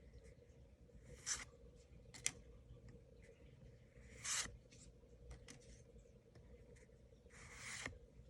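Pokémon trading cards sliding against each other as they are flipped through one by one: several short, faint swishes and a longer rub near the end.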